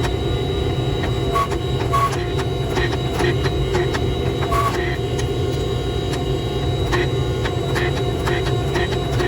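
Steady low roar of a blacksmith's forge, with scattered light metallic clinks and knocks, a few ringing briefly.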